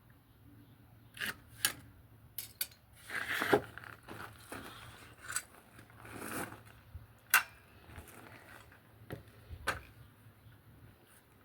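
Handling noise: scattered light clinks and knocks, with two short scraping rustles about three and six seconds in.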